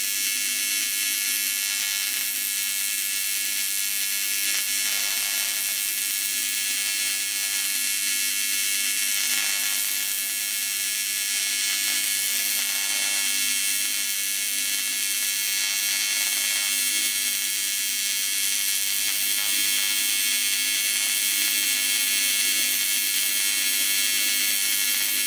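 AC TIG welding arc on an aluminum wheel rim, a steady electric buzz that holds without a break, as filler is laid into a crack in the rim.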